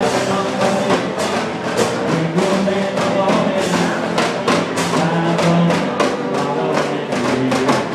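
One-man band playing: a yellow electric guitar strummed over drums and other percussion beaten from a backpack rig, with a busy, fast run of strikes and held guitar notes.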